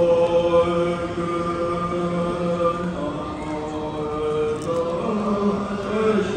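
Tibetan Buddhist prayer chanting: voices hold long, steady notes together, shifting to new pitches about three seconds in and again about five seconds in.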